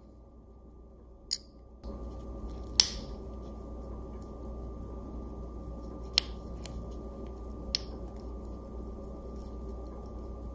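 A few sharp, small metallic clicks, the loudest about three seconds in, as the bezel with its new glass crystal is snapped onto a 1902 Waltham pocket watch case, over a faint steady hum.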